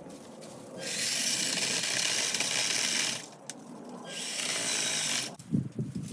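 A power tool run in two bursts: a hissing, high-pitched buzz for about two seconds, a short pause, then about another second.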